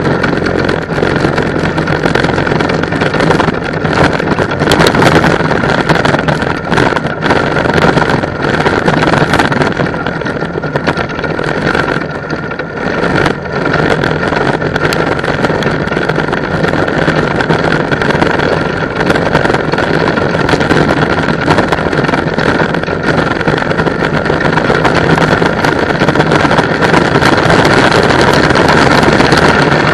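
Go-kart engine running steadily, heard from the kart's onboard camera as it drives on track, with wind buffeting the microphone.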